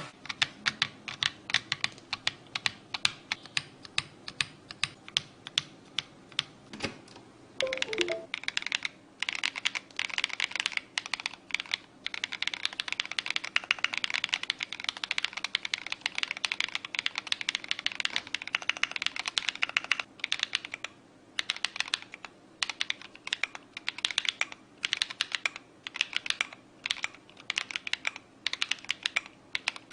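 Typing on a mechanical keyboard: quick, irregular key clicks, with a dense run of fast typing through the middle and brief pauses between bursts.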